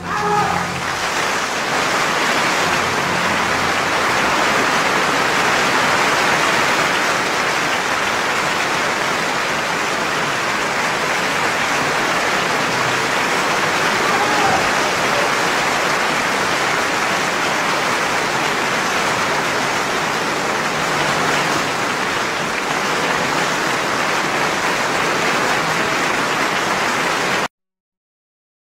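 Steady rushing noise, like heavy rain or running water, with no singing or tune in it; it cuts off suddenly near the end.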